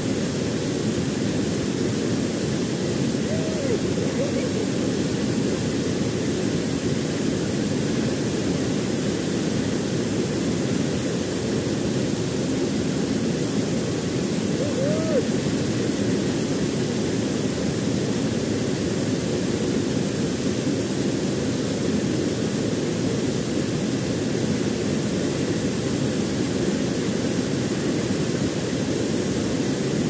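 Waterfall pouring into its plunge pool: a steady, unbroken rush of falling water with a deep, full tone.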